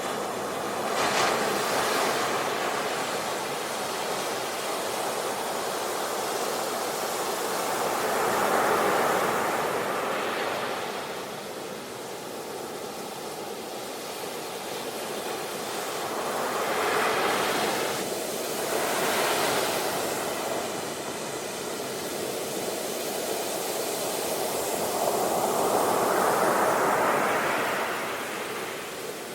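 Ocean waves breaking and washing on a shore, a steady rush of surf that swells and falls back every several seconds.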